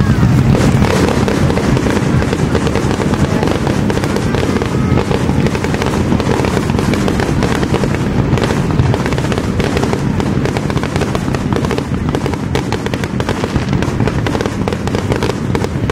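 Fireworks display: aerial shells bursting with dense, continuous crackling pops over a low booming rumble, without a break.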